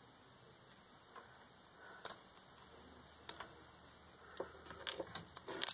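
Small parts of a home-built RC car being handled: sparse light clicks and taps of plastic pieces, coming more often in the last second and a half.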